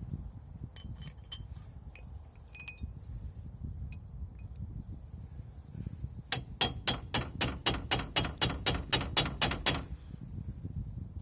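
A few light metal tool clinks, then a hammer striking metal in a quick, even run of about fifteen blows, roughly four a second, which stops abruptly about ten seconds in. The blows are typical of tapping a chisel to drive a pressed-in suspension ball joint.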